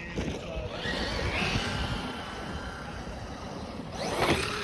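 Traxxas Maxx RC monster truck running, its electric motor and drivetrain whining. The pitch rises as it speeds up, with a sharper rev burst near the end, over the noise of the tyres on the ground.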